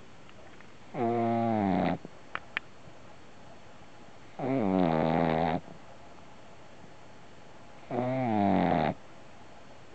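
Boston terrier puppy snoring: three drawn-out snores about three and a half seconds apart, each lasting about a second.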